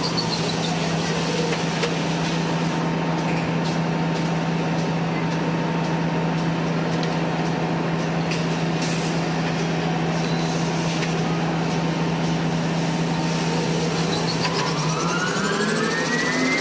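Automatic kitchen-towel rewinding machine running: a steady low hum over the broad running noise of its rollers and paper web. Near the end its drive whine rises in pitch as the machine speeds up.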